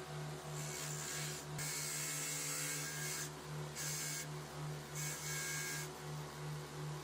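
A low mechanical hum pulsing about three times a second, overlaid by a hiss that starts and stops in stretches of a second or two.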